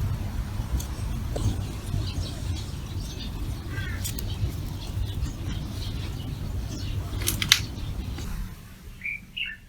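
Outdoor street ambience: a steady low traffic rumble with scattered faint clicks and chirps, which drops away about eight seconds in. A few short high chirps follow near the end.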